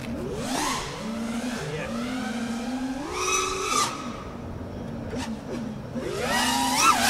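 FPV racing quadcopter's brushless motors and propellers whining in flight, the pitch gliding up and down with the throttle. There are louder, higher punches of throttle about three seconds in and again near the end.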